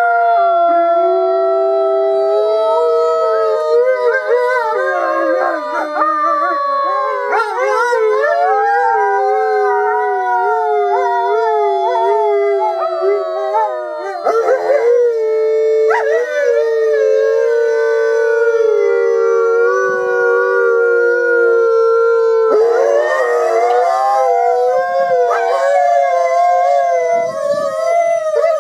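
A small pack of wolves howling in chorus: several long, slowly falling howls at different pitches overlap, broken by wavering yowls a few seconds in and again near the end. It is a family bonding howl within the pack.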